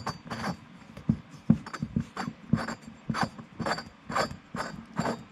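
Valve seat cutting tool twisted by hand in a motorcycle cylinder head, rasping against the valve seat in short back-and-forth strokes, about two a second: a trial cut to see where it contacts the seat.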